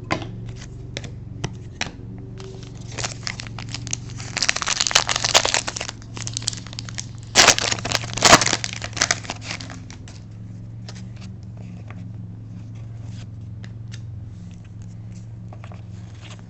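A trading-card pack wrapper crinkling and tearing as it is opened, in two crackly bursts about four and seven seconds in, with scattered clicks of cards being handled.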